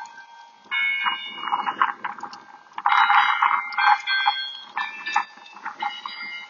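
Bells ringing: about a dozen irregular strikes whose pitched tones ring on and overlap, with a pause after the first second and fading toward the end.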